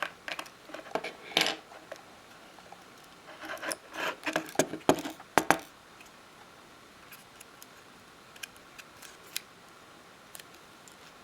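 Small repair tools and parts clicking and tapping against an opened iPhone 5: two clusters of sharp clicks in the first half, then only a few scattered ticks.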